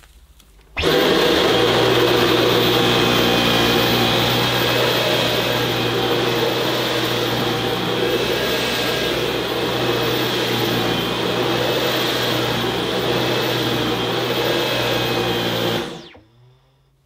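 Dyson V11 cordless stick vacuum with its High Torque cleaner head running steadily over carpet, sucking up loose debris, a steady whine over a low hum. It starts abruptly about a second in and dies away near the end.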